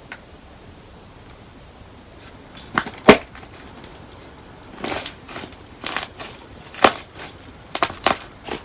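Sharp cracks and snaps of a hardened candle-wax shell on a slime being pressed and broken by hand. The cracks start about two and a half seconds in, come singly at uneven gaps, and the loudest is the second one.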